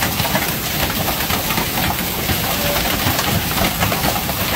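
Hail and heavy rain pelting the driveway, lawn and a parked car: a loud, steady hiss made of countless small impacts, with many sharp ticks of hailstones standing out.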